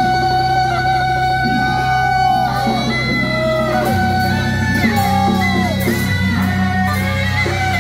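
Loud procession music: a wailing melody with sliding pitches over a steady low drone that shifts pitch about halfway through.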